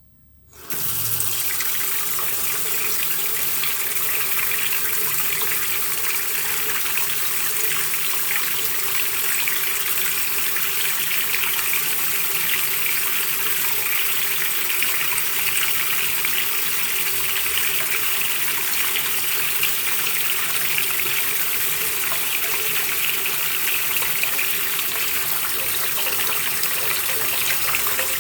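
Bathroom washbasin faucet turned on about half a second in, then water running steadily from the tap into the sink.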